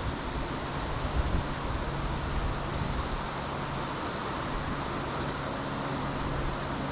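Car engine idling: a steady low hum over a constant rushing noise.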